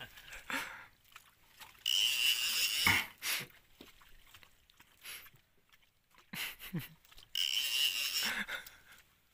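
Fishing reel on a rod bent under a hooked fish, giving two loud buzzing whirs about a second long: one about two seconds in and one near the end.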